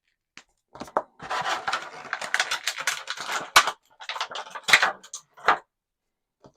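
Plastic action-figure packaging and small plastic parts being handled: a dense run of crackling and clicking for a couple of seconds, one sharp click, then a few scattered clicks, as spare figure hands are taken out.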